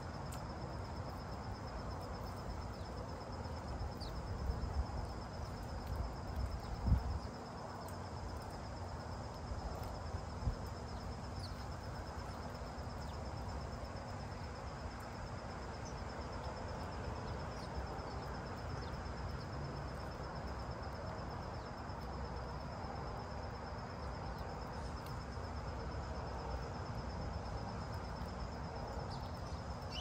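A steady, evenly pulsing high-pitched insect trill over a constant low outdoor rumble, with a few faint short bird chirps. A low thump comes about seven seconds in, and a smaller one about three seconds later.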